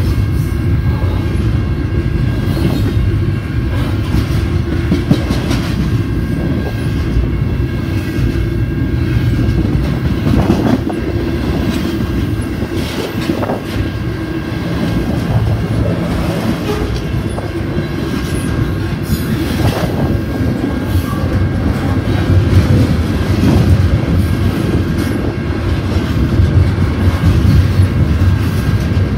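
Double-stack intermodal container cars rolling past at speed: a steady, loud rumble of steel wheels on rail, with a few sharper clanks along the way.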